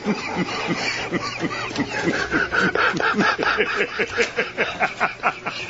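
News anchors laughing hard: a long unbroken run of rapid ha-ha pulses, about four or five a second.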